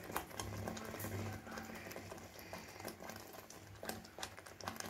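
Thick masala gravy simmering in a pot, with many small irregular pops and splutters over a faint steady low hum.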